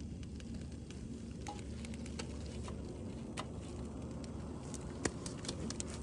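Foil-wrapped fish cooking slowly on a portable gas stove burner, crackling with scattered sharp pops over a steady low background; the pops come more often in the second half.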